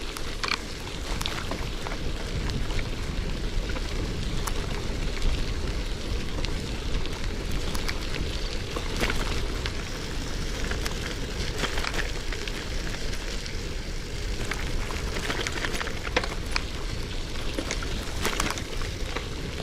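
Wind rumbling on the microphone during a bicycle ride, with steady tyre noise and scattered clicks and rattles from an old KhVZ bicycle.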